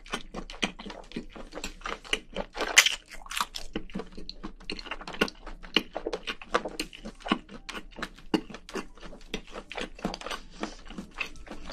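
A person chewing a mouthful of spicy braised seafood right at a close microphone: many quick, irregular wet clicks, with one louder crunch about three seconds in.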